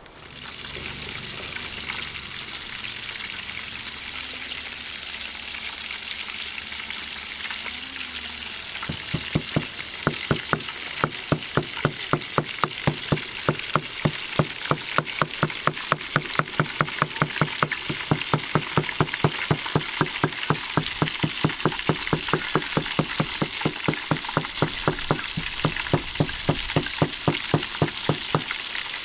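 Chicken deep-frying in hot oil, with a steady sizzle. About a third of the way in, a regular knocking joins it, about three times a second, and keeps going.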